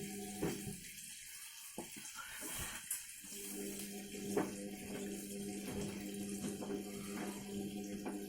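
ATLANT washing machine filling with water: a steady rush of water with a constant hum, and a few brief knocks.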